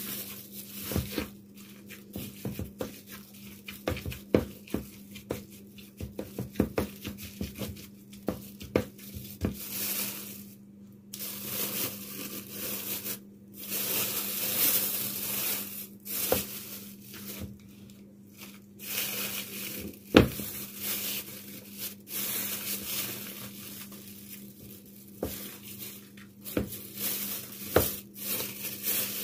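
An old hand masher tamping cooked meat down into a plastic bag: irregular soft knocks with the bag crinkling and rustling, one knock louder about twenty seconds in.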